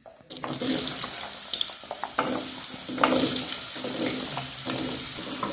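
Cubes of peeled banda dropping into hot oil in an aluminium kadhai, which starts sizzling steadily about a third of a second in, with a few knocks of pieces and the steel plate against the pan.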